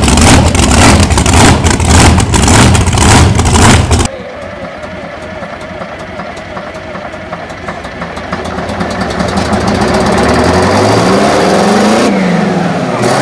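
Supercharged V8 with open headers running hard with a loud, fast, choppy exhaust, cut off abruptly about four seconds in. It is followed by the Big Bud 747 tractor's 16-cylinder two-stroke diesel, quieter at first, then climbing in pitch and loudness as it speeds up and blows black smoke, with a dip and rise in pitch near the end.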